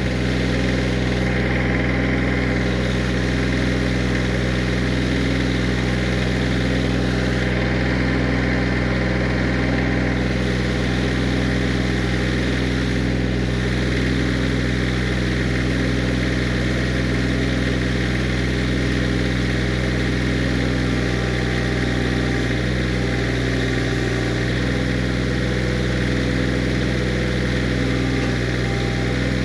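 Kioti CK20 compact tractor's three-cylinder diesel engine running at a steady speed.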